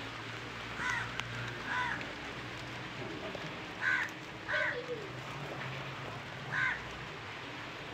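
Crows cawing: about five single caws spaced a second or two apart, over a low steady hum.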